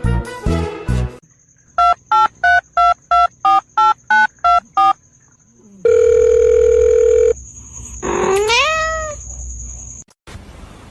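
Music stops about a second in. About ten short, evenly spaced electronic beeps follow, then a steady electronic tone lasting about a second and a half, then a single rising meow from a cat.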